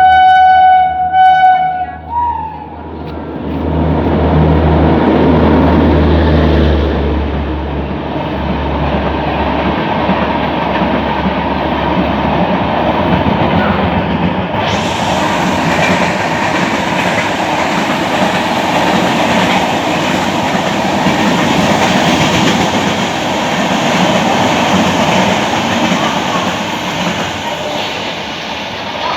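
Indian Railways electric locomotive sounding two horn blasts about a second and a half long in all, then passing with a low rumble, followed by a long passenger express rushing by at speed with a steady rattle and clatter of coaches over the track.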